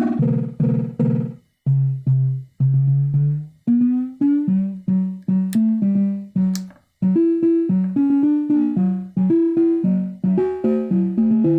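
Instrumental music: a melodic line of short, sharply struck notes that each fade quickly, moving in steady steps. Two sharp clicks come in the middle.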